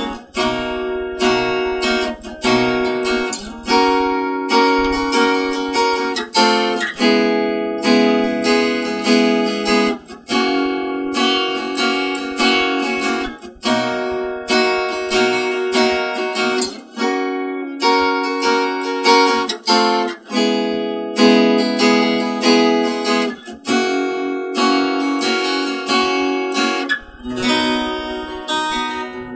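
At First AG-07 40-inch steel-string acoustic guitar being played, strummed chords and picked notes ringing out with a fresh chord struck about every half second to second.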